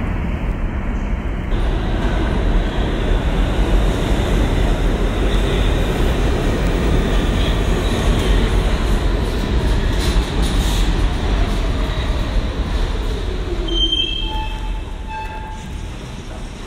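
New York City subway train running into the station alongside the platform: a steady rumble of wheels on rail. Near the end a whine falls in pitch and the noise dies down, with a few short high squeals.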